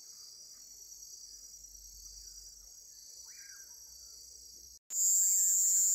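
Night chorus of crickets, a steady high-pitched trilling that gets suddenly louder near the end. A couple of faint curiango (common pauraque) calls come through, about three seconds in and again near the end.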